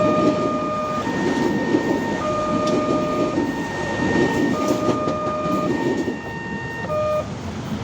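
Railway level-crossing warning siren sounding a two-tone alternating call, switching pitch about every second, and cutting off about seven seconds in. Under it, a passing train's wheels rumble on the rails.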